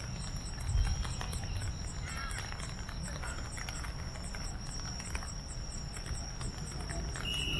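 Insects calling: a steady high trill with a fast, rhythmic pulsed chirping above it, over a low rumbling background. A louder, lower-pitched steady trill sets in near the end.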